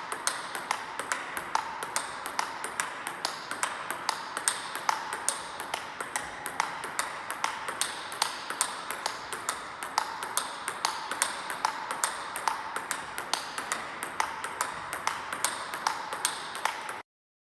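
Table tennis forehand rally: the ball clicking off the paddles and the table several times a second in an even rhythm, over a steady hiss. The sound cuts off suddenly near the end.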